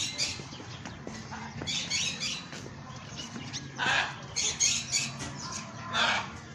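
Birds squawking and chirping in bursts of rapid high calls, with two louder, harsher squawks about four and six seconds in.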